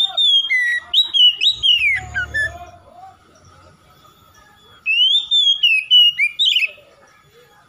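Male Oriental magpie-robin singing two phrases of clear, gliding whistles with a quiet gap between them. The first phrase runs from the start to almost three seconds in, and the second comes at about five to seven seconds.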